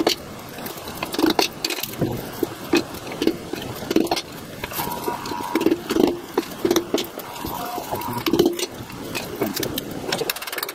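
Hammer blows on a screwdriver used as a chisel to break open a small transformer for its copper: about a dozen sharp knocks at an uneven pace, roughly one a second, with small rattles between them.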